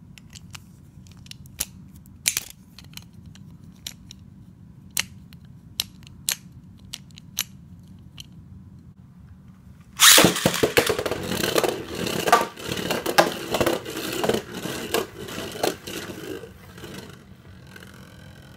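Sharp plastic clicks as a Valtryek V2 Limited Unite Beyblade is snapped together by hand. About ten seconds in, the top is launched into a Takara Tomy B-09 plastic stadium with a sudden loud start and clatters around the bowl for several seconds, then settles into a quieter spin in the centre.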